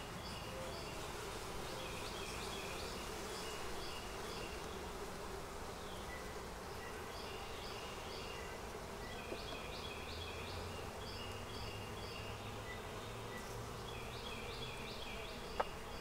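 A honeybee colony buzzing steadily in a low hum over the open, freshly smoked hive frames. Groups of high repeated chirping notes come and go, and a single sharp click sounds near the end.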